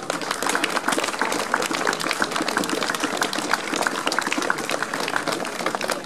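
Audience applauding: steady, dense hand clapping.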